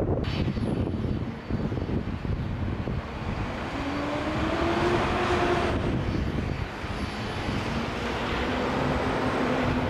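Jet airliner engine noise as the aircraft passes: a steady rumble and rush. A whining tone rises and falls in pitch between about four and six seconds in.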